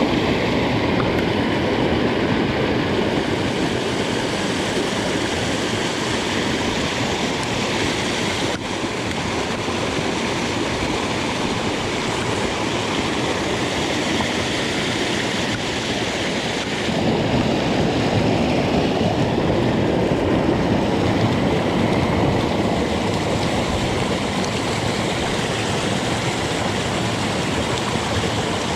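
Mountain stream running, a steady rush of water over rocks that gets a little louder about seventeen seconds in, with a single faint click about eight and a half seconds in.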